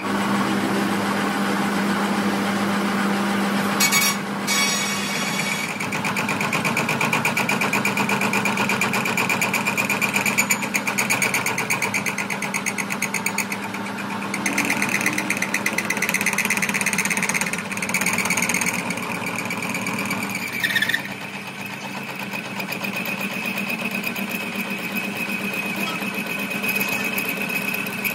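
Workshop machine running steadily with a fast, even rattle and a high whine, dipping briefly a few times.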